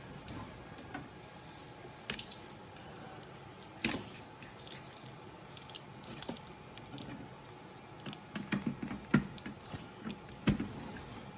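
Handling noises as a GPU power cable is fitted: scattered clicks, taps and small knocks of plastic connectors and metal parts, with a louder cluster of clicks near the end.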